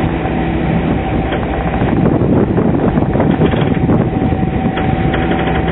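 Steady rush of wind and water from a catamaran under way on the open sea, with a constant hum underneath. The noise swells a little in the middle.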